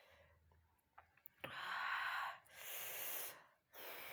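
A woman's heavy breaths through the mouth, three in a row starting about a second and a half in, as she pants against the chilli burn of very spicy noodles.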